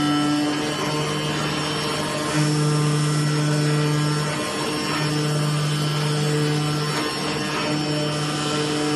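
Flatbed CNC digital cutter cutting a cork sheet: a steady mechanical hum with a low tone that breaks off briefly twice, about four and a half and seven seconds in.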